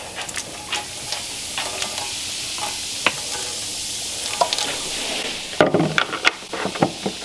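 Baking soda and white vinegar fizzing in a kitchen sink: a steady crackling hiss of bubbles as the two react. About five and a half seconds in, a few louder knocks as the vinegar bottle is handled and set down on the wooden counter.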